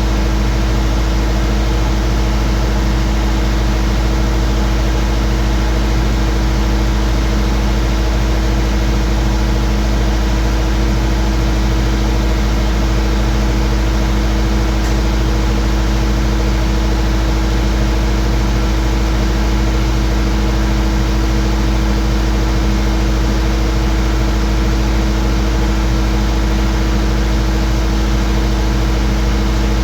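Skid steer engine running at a steady speed, its pitch and loudness unchanging throughout.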